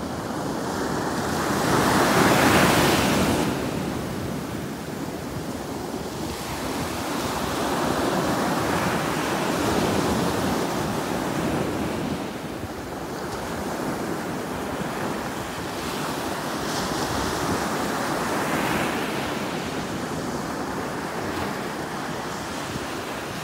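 Ocean surf: small waves breaking and washing in, rising and falling in slow swells, the loudest about two seconds in.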